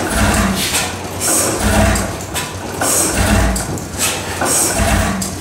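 Large horizontal stationary gas engine with heavy spoked flywheels running slowly, with a regular low beat about every second and a half and smaller knocks in between.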